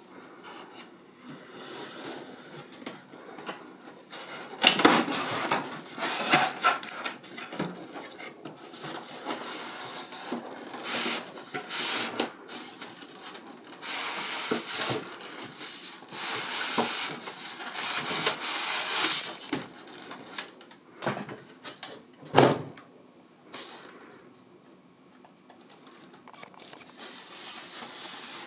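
Cardboard gift box being opened by hand, its end flaps folded back and a foam packing case slid out: an irregular run of paper rustling, scraping and a few sharp knocks, one of the loudest late on.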